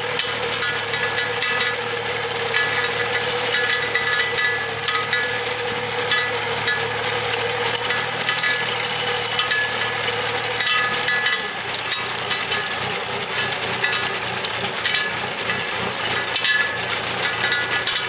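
Small tractor's engine running steadily while a tractor-drawn potato digger lifts soil and potatoes, with a dense rattling clatter from the digger's shaking conveyor. The engine note drops a little about eleven seconds in.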